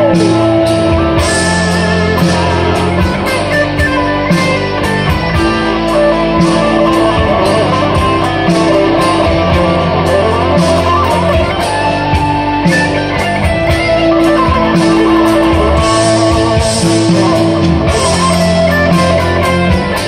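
Electric guitar played loud through a Framus Dragon amplifier: a rock-style improvisation, with picked notes over held low tones.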